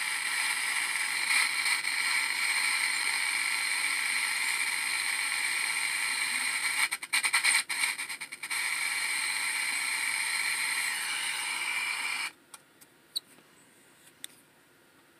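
Static hiss with faint steady tones from the speaker of an IFR FM/AM-1200 service monitor whose receiver is out of lock. It stutters briefly about seven seconds in, then cuts off suddenly about twelve seconds in as the unit is switched off, leaving a few faint clicks.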